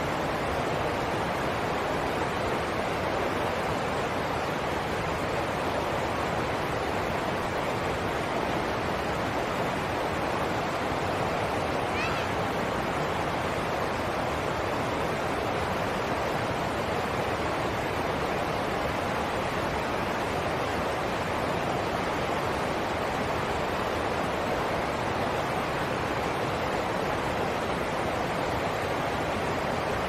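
A rocky stream rushing over a low ledge into small whitewater rapids: a steady, unbroken rush of water.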